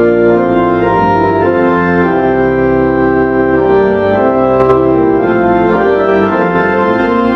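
Church organ playing slow sustained chords over a deep pedal bass, the chords changing every second or so. A faint click sounds about two-thirds of the way through.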